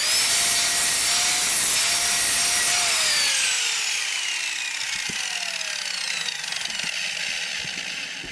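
A powered miter saw starts and cuts a piece of aluminium bracing bar. The motor runs steadily for about three seconds, then is released, and the blade winds down with a falling whine until near the end.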